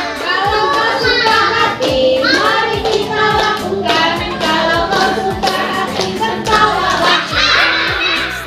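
A group of children singing together over a music backing track.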